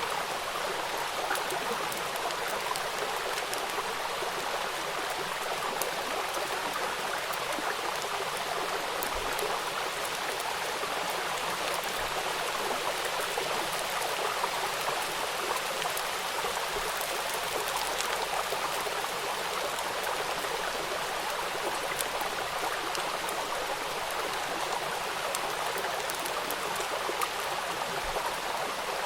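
Steady rainfall, an even hiss with many separate drop ticks scattered through it.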